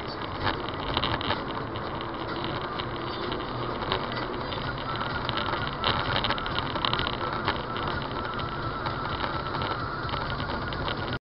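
Car driving on a wet road, heard from inside the cabin: steady engine and tyre noise with scattered ticks and knocks. It cuts off suddenly at the end.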